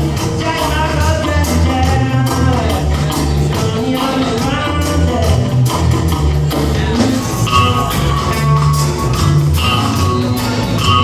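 Band music with a steady, prominent bass line and a melody line over it.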